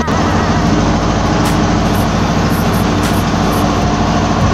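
Mitsubishi 6D15 six-cylinder diesel engine running steadily and loudly with its newly refitted, recalibrated injection pump, with a few faint clicks over it.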